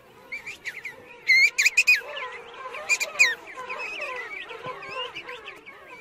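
King penguin colony calling: many birds at once in a dense, overlapping chatter of short, pitch-bending calls, with a few louder high calls about one and a half and three seconds in.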